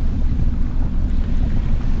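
Wind buffeting the microphone, a heavy fluttering rumble, over the steady wash of ocean surf.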